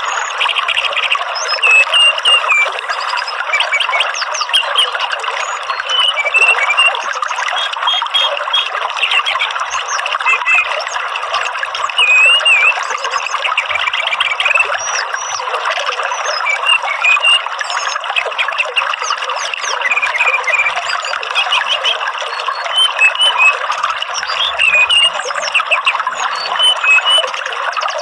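Many short, high bird chirps and whistles scattered over a steady hiss of running water.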